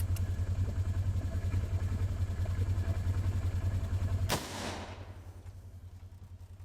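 An off-road side-by-side's engine idling with a low, fast pulse. About four seconds in, a single loud gunshot cracks and echoes away, the shot at the buck.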